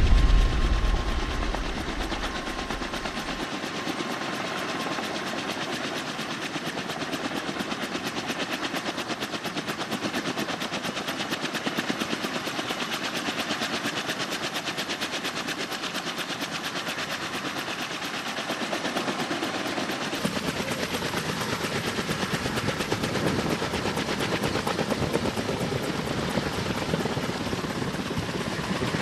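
Kaman K-MAX helicopter with intermeshing twin rotors and a turboshaft engine, running with a fast, even rotor-blade chop. The sound grows slightly fuller and louder about twenty seconds in.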